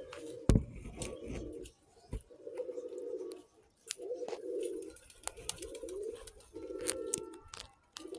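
Domestic pigeons cooing over and over, about six low coos of under a second each with short gaps between them. A sharp click about half a second in is the loudest sound.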